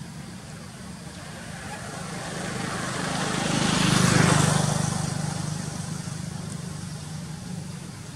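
A motor vehicle passing by, its engine and tyre noise swelling to a peak about four seconds in and then fading away, over a steady low hum.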